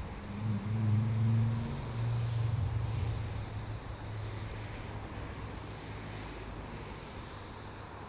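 English Electric Class 37 diesel locomotive's V12 engine growling, a low steady drone that swells about half a second in, stays loudest for a couple of seconds, then fades gradually.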